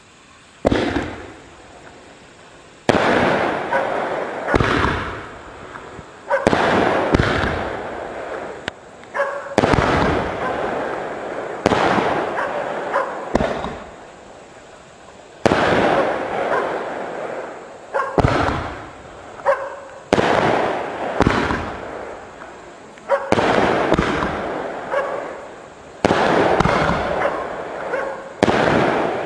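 A 10-shot double-ring aerial firework cake firing: a run of sharp bangs every one to two seconds, each followed by a fading crackling hiss.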